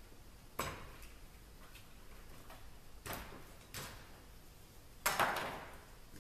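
A pull golf cart's top bag holder being worked off the cart frame: four separate clicks and knocks of metal and plastic parts, the loudest about five seconds in.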